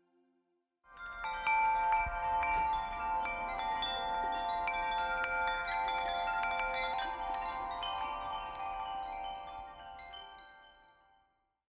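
Bell-like chime tones ringing in a dense, overlapping cluster of many strikes, starting about a second in and slowly dying away near the end.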